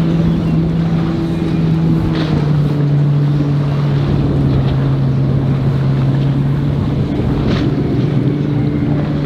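Outboard boat engine running at a steady low drone, its pitch dipping slightly a couple of seconds in and coming back up near the end, over the wash of water.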